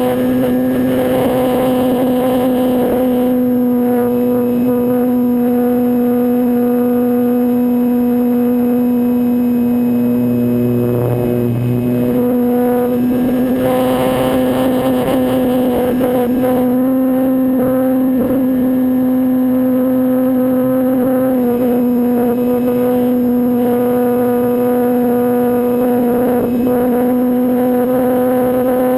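RC S.E.5a scale model biplane's motor running steadily at cruising throttle in flight, heard close up from the onboard camera, with a wash of wind noise. The pitch holds nearly level, with only small dips.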